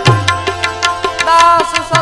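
Devotional bhajan music: tabla strokes in a quick rhythm with a deep drum stroke at the start, under a held melody, and a wavering sung note about one and a half seconds in.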